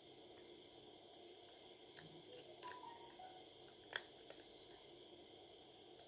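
A few faint, sharp clicks of small repair tools and parts touching a smartphone's frame as the motherboard is lifted out, the loudest about four seconds in, over a steady low hiss.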